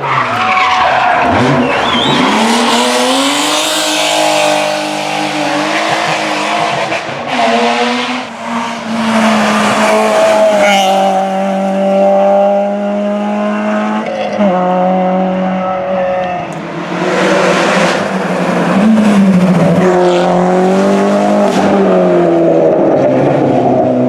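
Rally car engine at full throttle, its pitch climbing through each gear and dropping at every upshift, repeated through the run, with tyres skidding.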